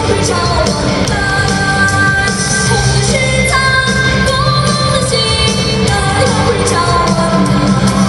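Hockey goal song: a pop-rock track with singing, played loud as part of a team's goal celebration.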